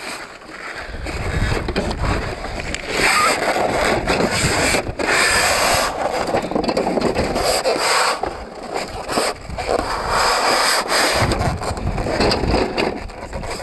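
Wind buffeting the microphone in gusts, over the scraping and rustling of a cardboard carton and its packing as hands rummage inside it.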